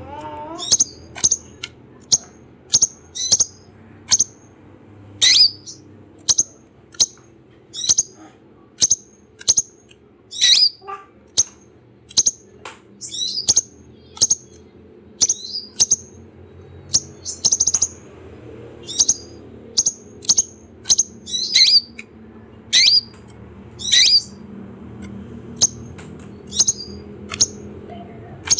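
Kolibri ninja (purple-throated sunbird) calling: short, sharp, high-pitched chirps about once a second, some with quick downward sweeps, over a faint low background hum.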